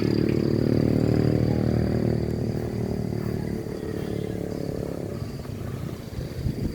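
Motor vehicle engine running and steadily fading as it moves away.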